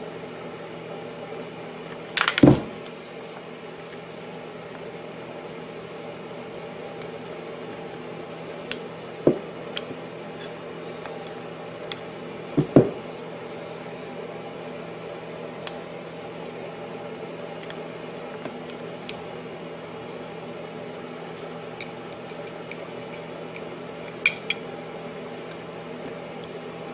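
Screwdriver and small screws clinking and tapping against a small engine's cast metal valve cover and its PCV breather plate as the plate's screws are taken out. The clinks are scattered and sharp, the loudest about two seconds in, over a steady low hum.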